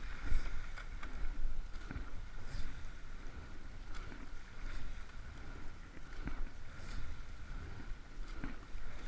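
Rowing eight under way: a steady low rumble of water along the hull, with a short knock of the oars and seats about every two seconds as the crew takes each stroke.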